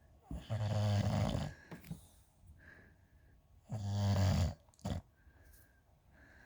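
Bulldog snoring: two loud, rasping snores about three seconds apart, each lasting about a second, with a short catch of breath just after the second.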